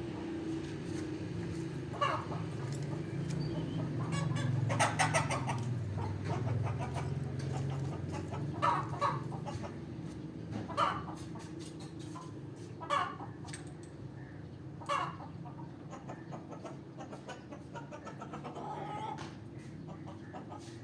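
Olive peach-faced lovebird chirping: short, sharp calls repeated about every two seconds, with a quicker run of calls about five seconds in, over a steady low hum.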